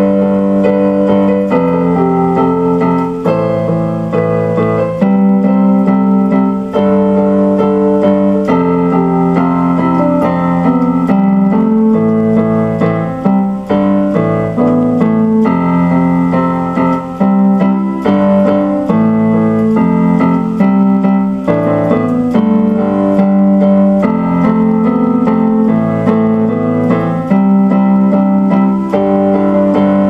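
Electronic keyboard played with a piano sound: a slow instrumental piece of sustained chords that change every second or two.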